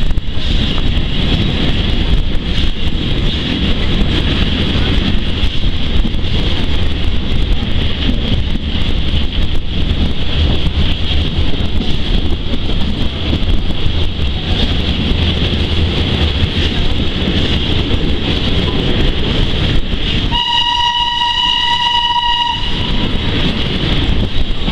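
Steady rumble and rush of a steam-hauled train running along the track, heard from a carriage window. About twenty seconds in, the steam locomotive's whistle sounds once, a single steady tone lasting about two seconds.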